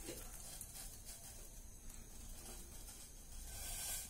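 Faint steady hiss of gas-stove burners turned low under empty steel pans, a little louder near the end.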